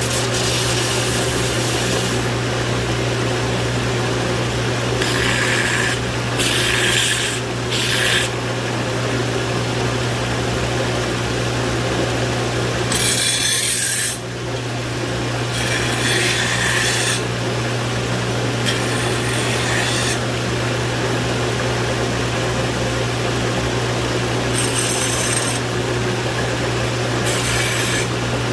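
A power grinder running with a steady hum while steel for a hand-forged hoe is pressed against it in short grinding passes of a second or two, about ten in all.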